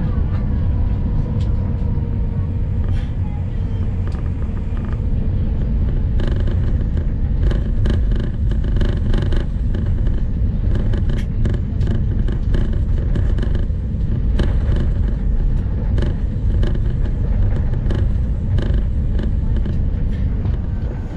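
Cabin noise of an Airbus A350-900 taxiing: a steady low rumble from the Rolls-Royce Trent XWB engines at taxi power and the wheels rolling over the pavement. A faint steady whine fades out over the first few seconds. From about six seconds in there are frequent short knocks and rattles.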